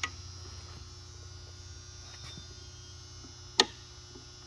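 Steady low electrical mains hum, with one sharp click about three and a half seconds in.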